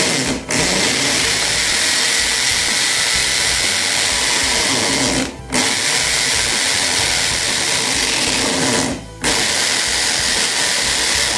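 Makita HP1630 hammer drill in hammer mode, a masonry bit boring into a chunk of concrete. It runs hard and steady, stopping briefly and restarting about five seconds in and again about nine seconds in.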